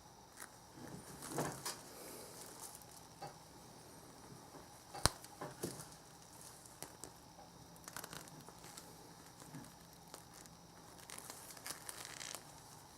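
Faint rustling and crinkling noises, scattered and irregular, with one sharp click about five seconds in.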